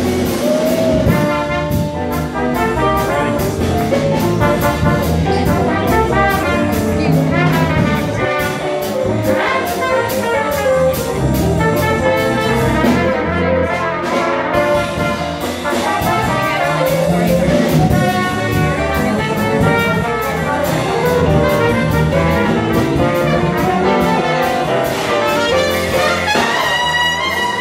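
Live New Orleans jazz band playing an instrumental chorus: trumpet and trombone lead together over electric bass guitar and a drum kit keeping a steady beat.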